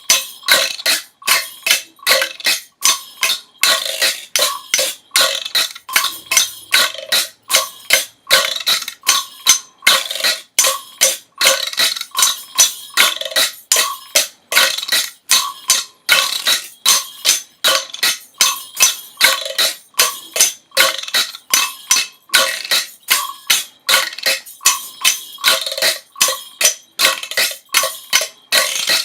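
Rapid, rhythmic breathing close to the microphone: short, quick breaths, about two to three a second.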